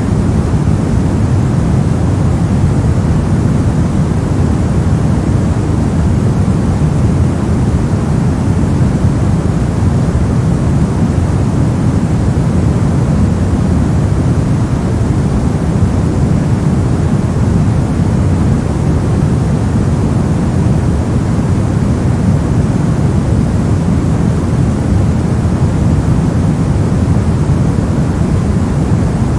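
Steady generated white-noise track: an unbroken, even hiss that is deep in tone, with most of its strength in the low range and much less at the top.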